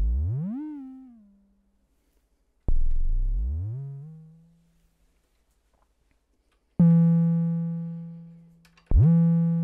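Moog DFAM analog percussion synthesizer sounding four single decaying notes about two seconds apart. The first two sweep up from a low pitch to the set pitch. The next holds a steady pitch, and the last drops quickly from high at its attack: the VCO pitch envelope being turned from negative to positive.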